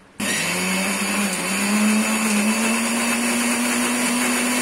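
Electric mixer grinder running with its steel jar grinding soaked moong dal and green chillies into a coarse batter. It switches on sharply just after the start, and the motor hum creeps slowly up in pitch as it runs.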